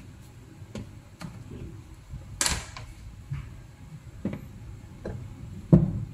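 Kitchen handling noise: scattered light clicks and knocks of plastic food containers, produce and a knife being moved on a counter. There is a brief louder rustle about two and a half seconds in and a heavier knock near the end.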